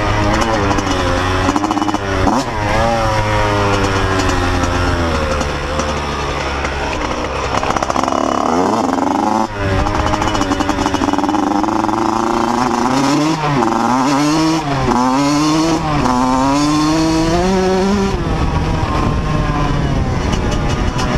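1999 Yamaha YZ80 two-stroke single-cylinder dirt bike engine under way, revving up and easing off again and again, its pitch climbing and dropping repeatedly.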